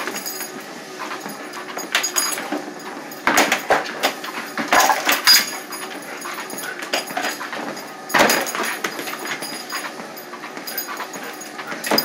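German Shepherd whimpering over the steady running of a treadmill, with a few sharp knocks about three, five and eight seconds in.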